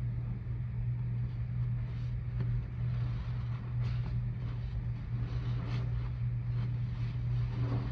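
A soapy sponge squeezed and kneaded by gloved hands in a tub of thick suds, giving soft wet squelches every second or two, over a steady low hum.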